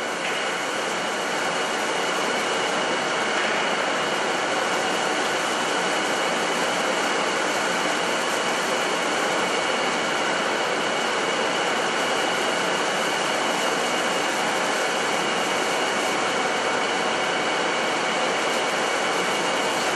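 WSM-1300 slitting machine running at speed, printed plastic film winding over its rollers: a steady mechanical whir with a constant high whine running through it, building a little over the first two seconds and then holding even.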